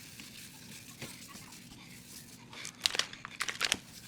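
A short run of crinkling and sharp crackling clicks about three seconds in, over a faint steady hiss.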